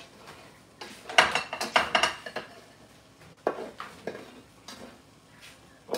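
A spoon scraping and clinking against a stainless steel frying pan as browned crumbled sausage is scraped out onto a plate. A dense run of scrapes and clinks about a second in, then a few more strokes later.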